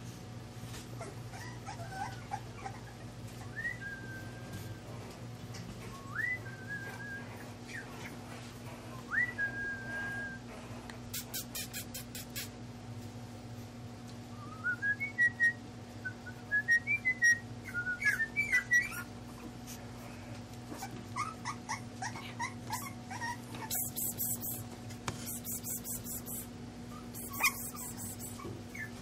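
English bulldog puppy whining: a few high whines that rise and then hold in the first ten seconds, then runs of short, squeaky whimpers in the middle and near the end. Bursts of clicking come in between, over a steady low hum.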